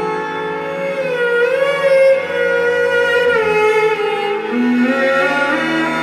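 A Sarello, a bowed instrument with a half-size cello body, a sarangi-style neck and ten sympathetic resonating strings, plays a melody over sustained looped drone layers. The notes are stopped by sliding the fingernails along the strings, so the bowed line glides in pitch: up about a second in, back down around the middle, and up again near the end.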